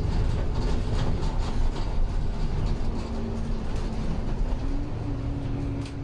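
Bus interior noise on the move: the low rumble of engine and tyres with the rattling of fittings in the cabin. A steady whine steps up in pitch near the end.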